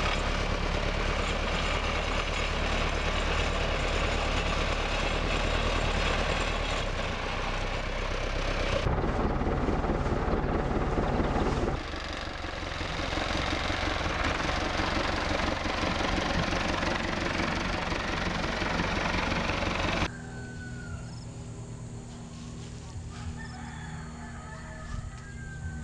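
A motor vehicle engine running steadily, in several spliced stretches. After a cut near the end the engine stops and a rooster crows among other bird calls.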